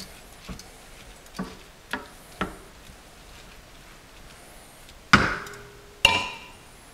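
A slotted spoon clicking and scraping against a skillet as rice is folded, then two loud knocks about a second apart near the end, each leaving a short metallic ring, as the spoon is rapped on the pan.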